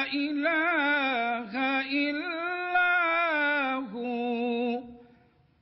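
A man reciting the Quran in melodic tajweed style, holding long drawn-out notes with wavering, gliding ornaments in his voice. The recited phrase ends about four to five seconds in, leaving a pause.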